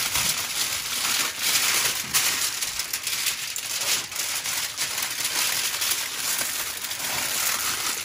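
Aluminium foil crinkling and crackling continuously as hands roll it around pork paste into a tight log.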